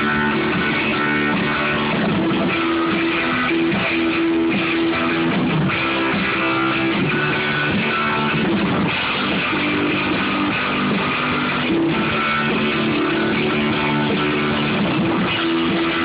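A rock band playing a song at rehearsal, led by strummed guitars, at a steady level.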